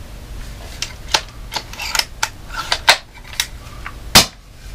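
A scoped airsoft sniper rifle being handled while it is shouldered and aimed: a string of about eight sharp plastic and metal clicks and clacks, irregularly spaced, the loudest one near the end.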